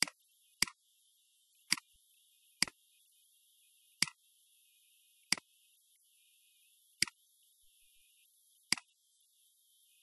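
Computer mouse clicks: eight sharp single clicks at uneven intervals, over a faint steady hiss.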